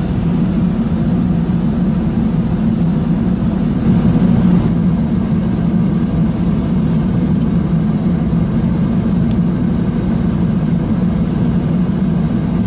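Chainsaw running steadily at high speed, cutting through fallen trees blocking a snowy trail.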